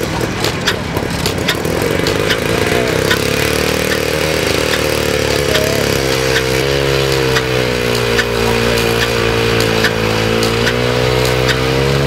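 Vintage stationary engine running steadily, a drone of engine tones with sharp regular clicks on top; the drone shifts slightly in pitch a little after halfway.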